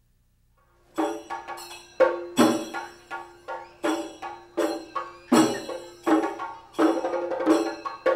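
Temple percussion starting about a second in: sharp strikes, two to three a second, with a ringing tone held between them, and a deeper drum beat about every three seconds.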